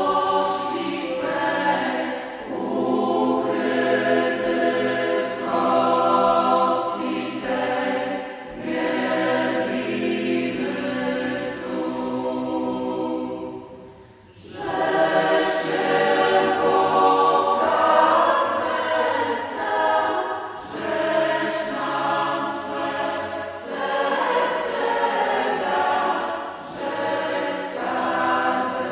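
Choir singing in harmony, long held chords shifting every second or two, with a brief break in the singing about halfway through.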